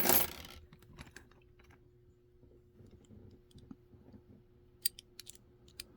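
Small metallic clicks and knocks of a disc detainer padlock being handled and taken out of its holder after being opened: a sharp knock at the start, faint scattered clicks, then a quick run of sharp clicks about five seconds in.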